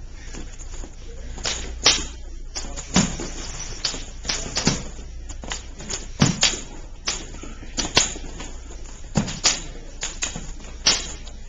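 Kali practice sticks striking one another in a partner drill: sharp, irregular knocks, about one or two a second.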